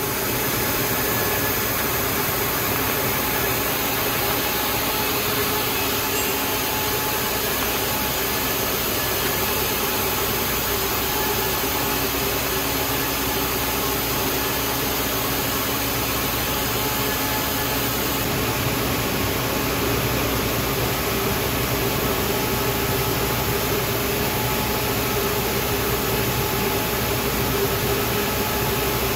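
QXM open-width single jersey circular knitting machine running at steady speed: a dense, even mechanical whir with a faint steady hum.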